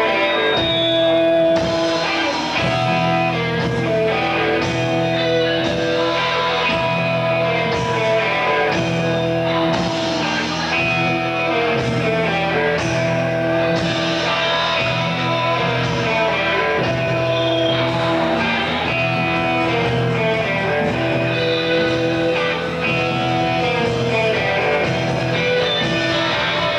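Live rock band playing, with electric guitar holding sustained ringing notes over bass and drums.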